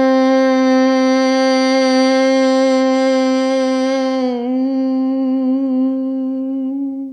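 A woman humming one long, steady note on the exhale in bhramari (bumblebee) breath, the final round of the exercise. The pitch wavers briefly about four and a half seconds in, then the hum fades and stops at the very end.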